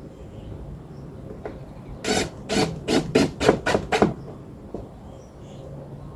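A run of about six quick rasping strokes against wood, starting about two seconds in and lasting about two seconds, over a faint steady low hum.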